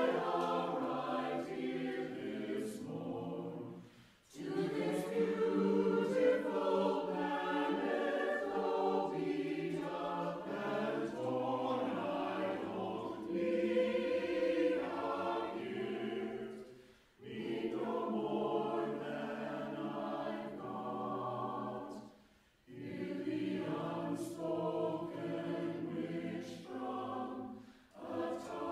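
Mixed-voice choir singing a cappella in several parts, in phrases broken by short pauses about four, seventeen, twenty-two and twenty-eight seconds in.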